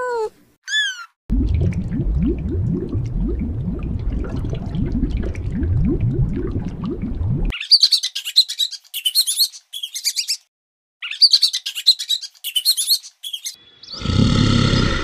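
A string of different animal calls cut one after another. A low sound with repeated rising sweeps runs for about six seconds, then several bursts of rapid high-pitched chirping, then a loud, low animal call starts about a second before the end.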